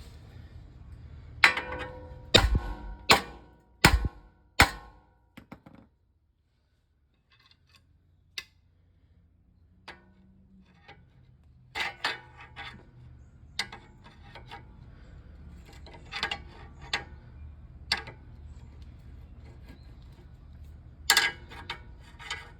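Sledgehammer blows on a steering knuckle to shock a lower ball joint's tapered stud loose: a quick run of five heavy metallic strikes in the first few seconds, then after a short gap a string of scattered lighter knocks.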